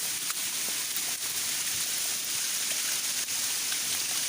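Waterfall: falling water rushing in a steady hiss.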